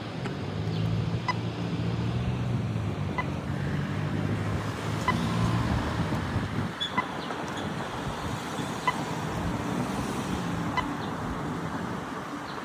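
Road traffic with a vehicle engine running low through the first five seconds or so, and a short high tick repeating evenly about every two seconds.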